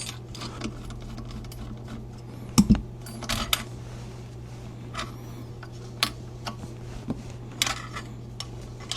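Scattered light clicks and taps of steel rifle parts being handled and worked apart during disassembly, with one louder knock about two and a half seconds in, over a steady low hum.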